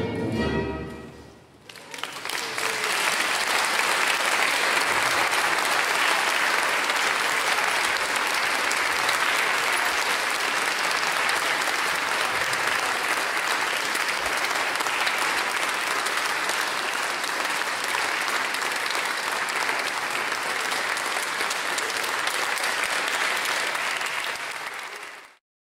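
An orchestra's final chord rings and dies away in the first second or two. Then the audience applauds steadily until the sound cuts off abruptly near the end.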